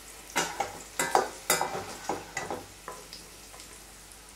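A slotted metal spatula scraping and clinking against a stainless-steel pan and plate while fried green beans are scooped out of hot oil, over a faint sizzle. The scrapes and taps come in a quick run and die down about three seconds in.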